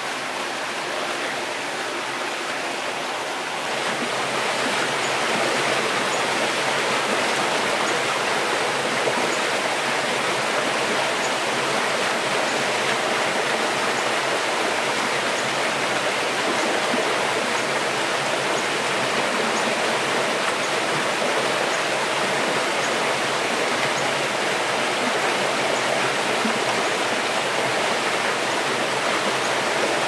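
Stream water flowing, a steady rush of running water that grows a little louder about four seconds in.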